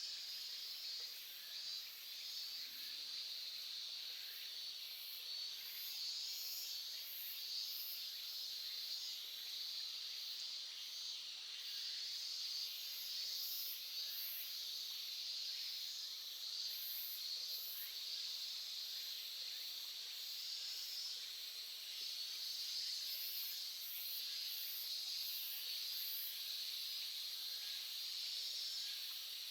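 Small stream babbling steadily, with high insect chirring coming and going over it.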